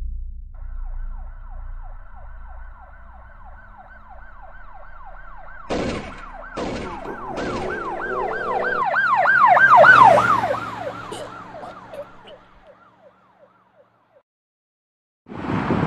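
Emergency-vehicle siren in a fast rise-and-fall yelp that grows louder, peaks about ten seconds in, then fades away. Three sharp knocks come about six to seven and a half seconds in.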